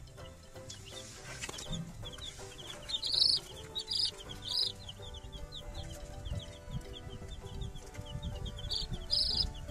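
Young chicks peeping: a steady stream of short, quick, high falling notes, with a few louder cheeps about three, four and four and a half seconds in, and again near the end.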